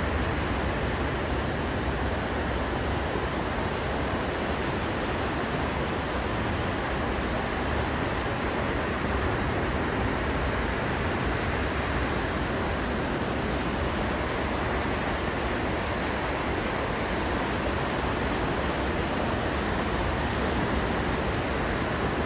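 Ocean surf breaking on a beach: a steady, unbroken rush of noise with no single wave standing out.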